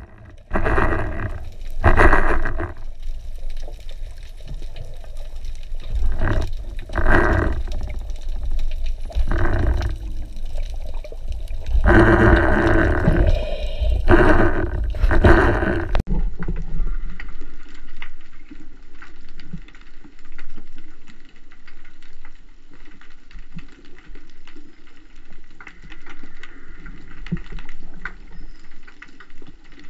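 Underwater water noise: irregular bursts of rushing, bubbling water, then about sixteen seconds in a sudden change to a quieter steady underwater hiss with faint scattered ticks.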